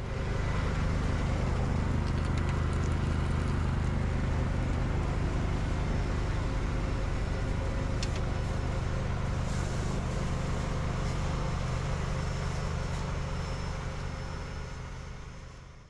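Engine running steadily at idle, fading out near the end.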